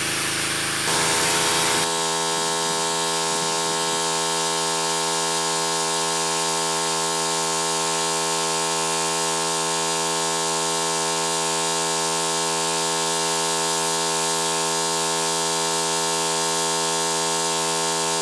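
Pressure washer running steadily, a constant machine hum with a high hiss over it; the sound changes about two seconds in, then holds unchanged.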